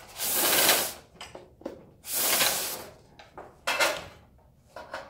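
Two long sliding swishes of a roll-up banner's printed vinyl being pulled up out of its base, with a few light knocks and clicks from the stand's pole and fittings.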